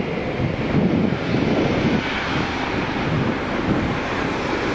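Airbus A380's four jet engines running loud and steady as the airliner rolls for takeoff, with wind buffeting the microphone.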